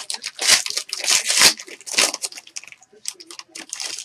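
Foil trading-card pack wrapper crinkling and tearing as it is ripped open by hand, in irregular bursts that are loudest in the first second and a half and sparser after that.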